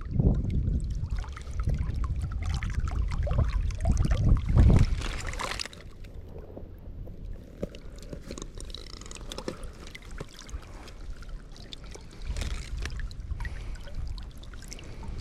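Wind buffeting the microphone for about the first five seconds, then dropping away to quieter splashing and trickling of water.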